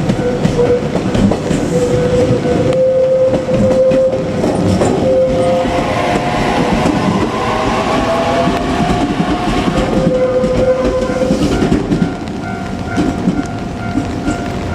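JR Kyushu 817 series electric train passing over a level crossing, wheels clattering over the rail joints, with a motor whine rising in pitch partway through. The crossing's warning bell rings steadily throughout.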